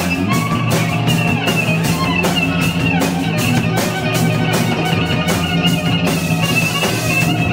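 A rock band playing: a drum kit keeps a steady beat with regular cymbal strikes under an electric guitar, with a high, wavering melodic line held above them.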